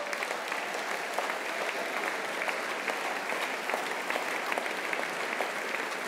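Large audience applauding: many hands clapping densely at a steady level.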